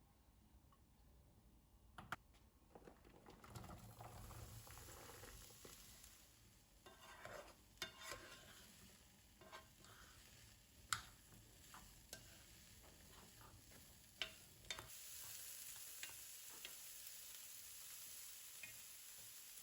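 Food sizzling in a pan while being stirred, with a few sharp clicks of a utensil against the pan. The sizzle gets louder about three-quarters of the way through.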